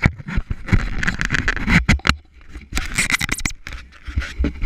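Handling noise on a mounted action camera: a hand rubbing, scraping and knocking against the camera and its mount, a close series of sharp knocks and scrapes, with a low steady rumble underneath in the second half.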